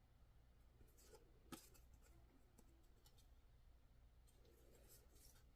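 Near silence with faint rustles of trading cards being handled and shuffled, and one light click about a second and a half in.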